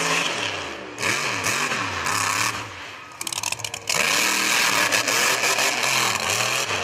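Mud-bog truck engines revving hard, their pitch rising and falling again and again, over a loud rush of noise. The sound drops briefly about three seconds in and then comes back at full strength.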